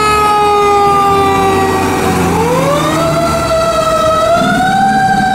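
Fire truck siren wailing on a tiller ladder truck pulling out on a call. One long tone slowly falls in pitch, then rises again about two seconds in and holds, over the low rumble of the truck's engine.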